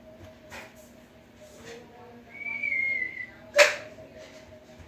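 A dog gives one high, slightly falling whine lasting about a second, then a single sharp knock about three and a half seconds in, over a steady low hum.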